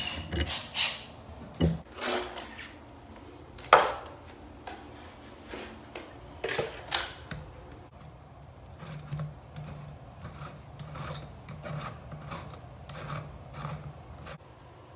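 Scattered metal clicks and knocks, with light rubbing, as a chrome angle stop valve on a water supply pipe is gripped and turned by hand. A single sharp knock about four seconds in is the loudest, and lighter ticking follows in the second half.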